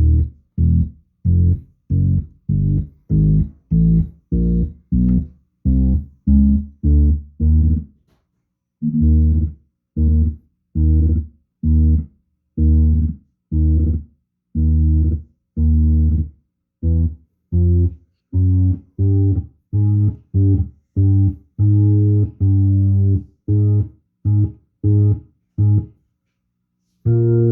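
Hammond B3 organ bass pedals played one at a time: a long run of short, low organ notes about two a second, breaking off briefly about eight seconds in, then going on with some notes held a little longer.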